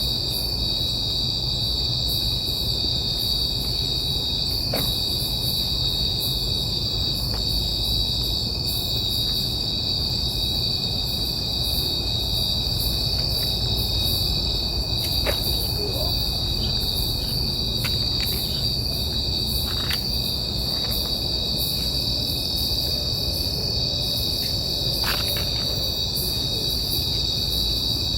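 Night insects trilling in a continuous high-pitched chorus, with a low steady rumble beneath and a few faint ticks.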